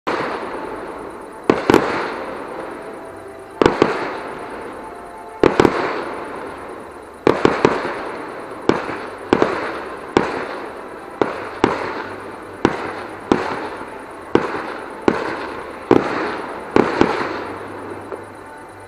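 Aerial fireworks shells bursting: sharp booms, one every second or so, some in quick doubles and triples, each with a long echoing tail. The bangs stop shortly before the end.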